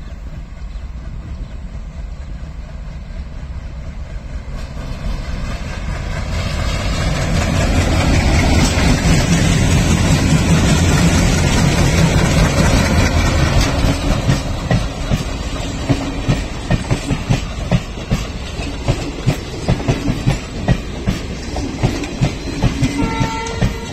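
Twin ALCO-type WDM/WDG-class diesel locomotives hauling an express train approach and pass close by, their engines growing louder over the first several seconds and loudest as the locomotives go past. The coaches follow with a steady clickety-clack as their wheels run over the rail joints.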